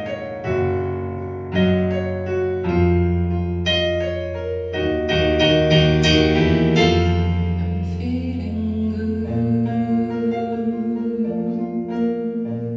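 Casio digital keyboard in a piano voice, playing the closing bars of a song. Struck chords sound over sustained low notes, with a quick flurry of notes about halfway through, then long held chords ringing out near the end.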